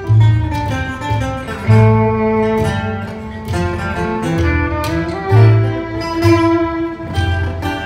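Live acoustic string band playing an instrumental passage: an upright bass plucking deep notes, a strummed acoustic guitar and a bowed fiddle playing a melody.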